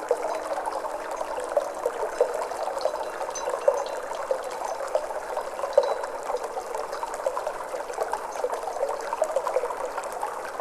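Flowing water, a steady trickling with many small bubbling droplet sounds.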